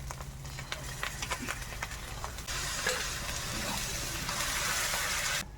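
Spice paste frying in hot ghee and oil in a kadai, with light clicks of a spatula stirring, sizzling. About two and a half seconds in the sizzle turns louder and stays even, then cuts off abruptly near the end.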